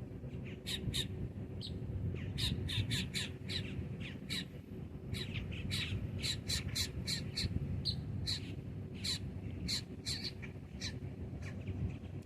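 Birds calling: a steady stream of short, harsh, high calls, several a second at times, over a low steady rumble.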